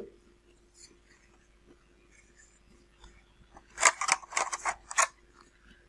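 Hard 3D-printed plastic fuselage sections clicking and scraping against each other as they are fitted together dry, a quick run of clicks lasting about a second, near the end.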